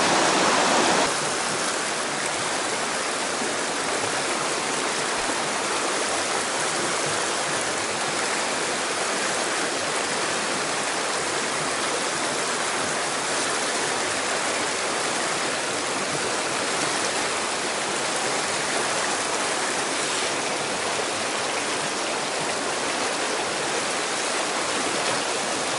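Mountain stream rushing over rocks: a steady noise of running water, a little louder for about the first second.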